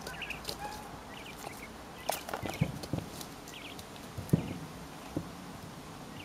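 Coturnix quail pecking at a cucumber: irregular sharp pecking knocks, the loudest about four seconds in, with short soft chirping calls from the birds.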